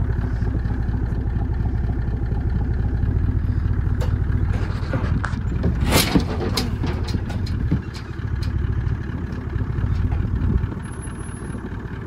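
Engine of a large farm machine running steadily as it is driven slowly through a gateway. A run of sharp knocks and clatters breaks over it, the loudest about six seconds in.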